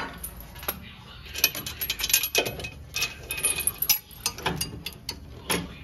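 Ratchet wrench clicking in quick runs, with a few metal clinks, as it works a puller drawing a pushed-in front axle shaft back out of the differential housing.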